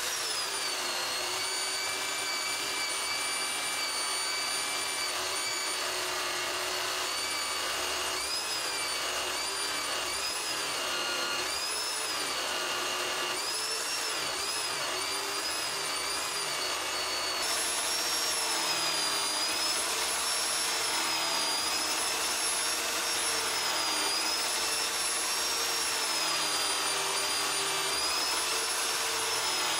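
Vise-mounted angle grinder running a polishing wheel, a steady high motor whine whose pitch dips and recovers over and over as metal parts are pressed against the wheel and polished. The whine steps slightly higher about two-thirds of the way through.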